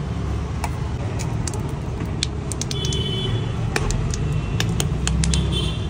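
Steady low rumble of street traffic and car engines, with scattered light clicks and clinks of a knife and metal utensils on the cutting board.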